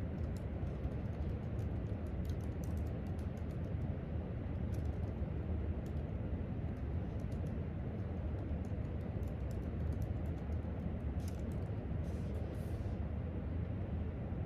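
Irregular, soft clicks of typing on a laptop keyboard over a steady low rumble of room noise.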